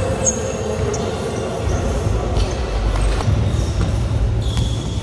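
Basketball players running on a sports hall court: low thudding footsteps and several short, high sneaker squeaks on the floor.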